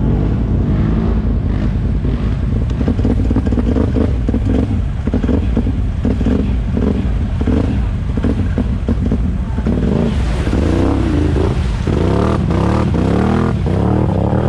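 ATV engines running and revving, the pitch rising and falling as the throttle is worked, with a run of quick repeated rev-ups near the end.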